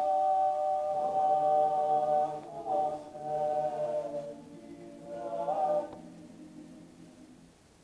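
Klapa, a Croatian male a cappella vocal group, singing in close harmony: long held chords that swell once more and then fade away near the end.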